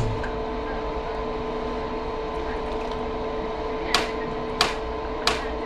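Hand trigger sprayer squirted three times in quick, even succession, about two-thirds of a second apart, starting about four seconds in, over a steady machine hum with a constant tone.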